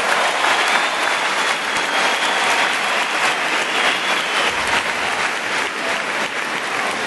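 Arena crowd applauding a won point in a table tennis match, the clapping easing off slightly toward the end.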